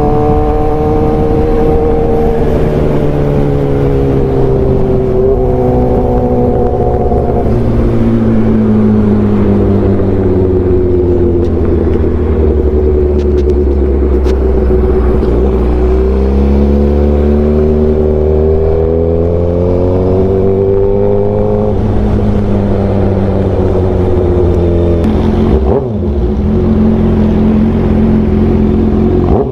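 Sport motorcycle's engine running under way, its note sinking slowly through the first half, climbing again, then dropping to a steady low note near the end as the bike slows.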